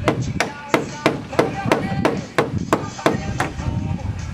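A hammer striking repeatedly in a steady rhythm, about three blows a second.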